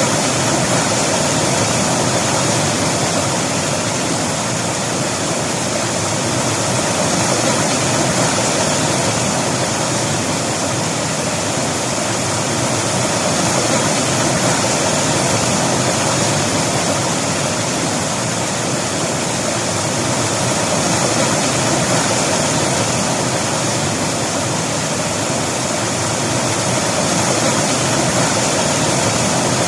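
River water rushing over rocks in a steady, continuous rush with no breaks.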